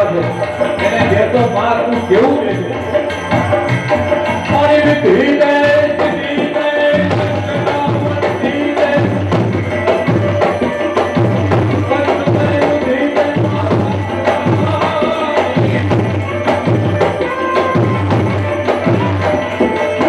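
Devotional folk music with a steady drum beat under a sustained melody.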